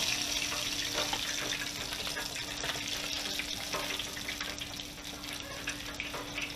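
Battered sturgeon chunks deep-frying in hot oil in an electric countertop deep fryer: a dense, steady bubbling hiss dotted with small crackles. It starts abruptly, with a faint steady hum underneath.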